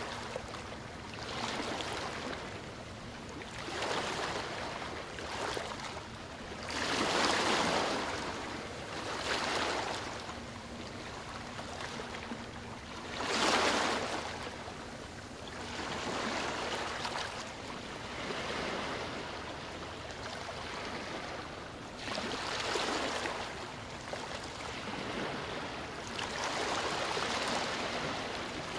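River waves washing against the bank in irregular surges a few seconds apart, each swelling and fading, over a faint steady low hum.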